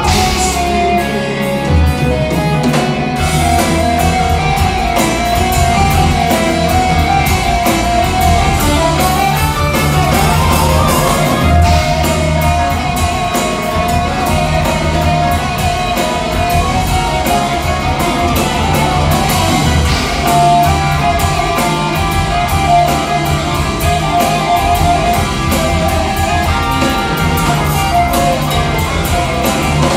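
Live progressive rock band playing loud: electric guitars and a drum kit over keyboards, in a dense, continuous passage.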